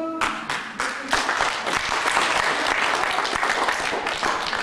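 A crowd applauding: a few separate claps at first, building within about a second into full, dense clapping.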